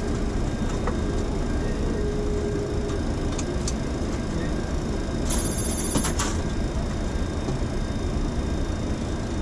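Steady cockpit noise of a Boeing 737-800 on the ground with its engines running. About five seconds in, a brief, rapid, high-pitched ringing rattle sounds for under a second.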